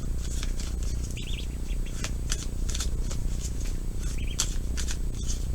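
Tarot cards being shuffled and flicked, a string of quick, irregular papery snaps over a low steady hum. Two short bird chirps come through faintly, about a second in and again near four seconds in.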